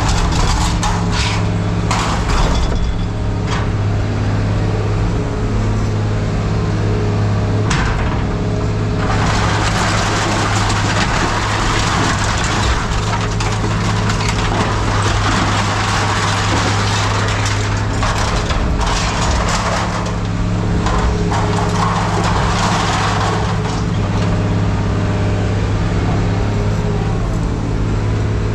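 Steady hum of a running machine, with irregular cracking and clattering of scrap metal being handled and cut. The clatter is densest through the middle.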